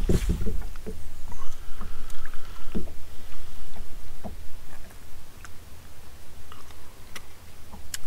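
Low rumble of wind on the microphone and water against a fishing boat's hull, with a few light clicks and knocks as a small largemouth bass is handled. The rumble eases about halfway through.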